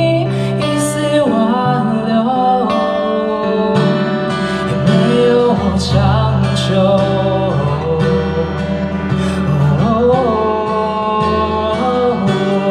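A song performed live: steel-string acoustic guitar with a singer's voice over it.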